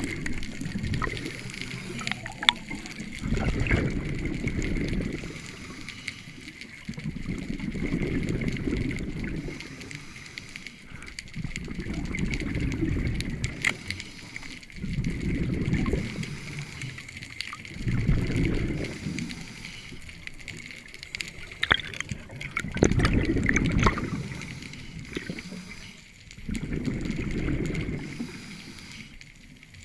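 Scuba diver breathing through a regulator underwater: seven bursts of exhaled bubbles, each lasting about two seconds, come roughly every four seconds.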